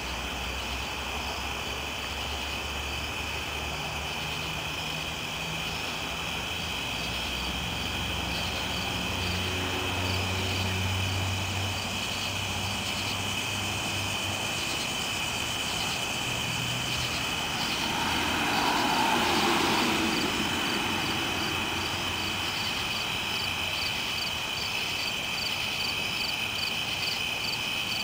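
Night insects, crickets among them, trilling steadily in a chorus, with an evenly pulsed chirp repeating a few times a second above it. Beneath this, a distant engine hums low, swells to its loudest about two-thirds of the way through, then fades.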